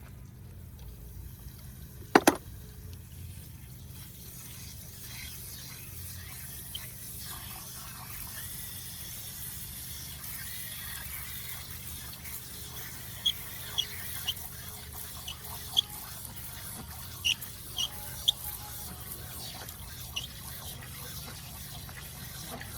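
Water hissing and running from a leaking water supply main while the old fitting is being disconnected. There is one sharp knock about two seconds in and short high squeaks scattered through the second half.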